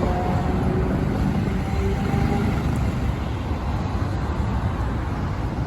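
Nagasaki streetcar running, a steady low rumble with a faint motor whine that fades out after about two seconds.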